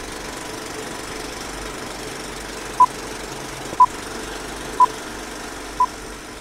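A steady mechanical rattle runs throughout, with four short high beeps, one a second, starting about three seconds in.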